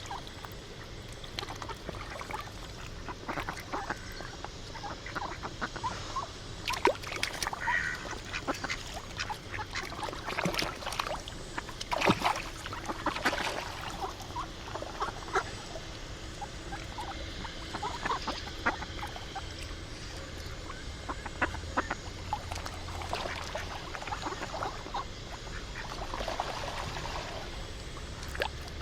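Waterfowl calling: ducks quacking and goose-like honks, scattered among many short, sharp sounds over a steady background noise.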